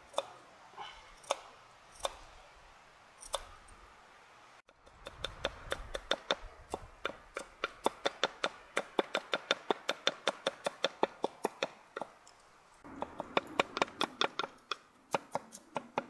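Knife chopping garlic cloves on a thick wooden chopping board. A few slow single cuts come first, then from about five seconds in a fast run of sharp taps, about five a second. After a short pause near twelve seconds, the fast chopping resumes with heavier knocks on the board.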